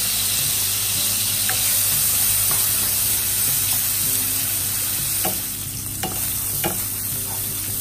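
Minced pork and diced carrot sizzling in oil in a nonstick wok while being stir-fried with a wooden spatula, a steady hiss. A few light taps and scrapes of the spatula on the pan come in the second half.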